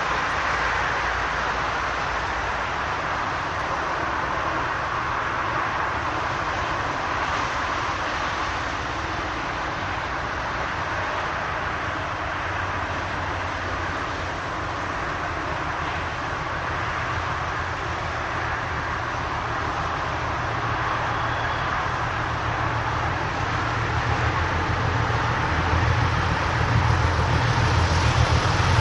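ČD class 749 diesel-hydraulic locomotive approaching on the line with a steady rumble. The low drone of its diesel engine grows louder over the last few seconds as it draws near.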